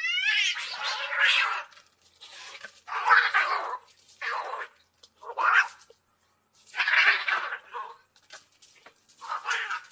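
Angry cat hissing about six times in short, breathy bursts with pauses between, opening on the tail of a rising yowl: a defensive warning.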